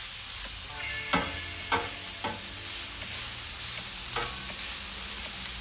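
Steel spatula chopping and turning pulled chicken on a Blackstone flat-top griddle, with four sharp metallic clinks of blade on the steel plate. Under them is a steady sizzle of the chicken frying in a little oil and butter.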